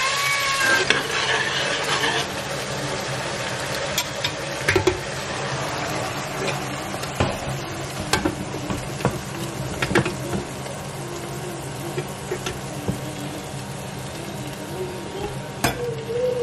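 Wooden spoon stirring and scraping through a pot of frying leafy greens, with sizzling that is strongest in the first two seconds. Scattered sharp knocks follow, over a steady low hum.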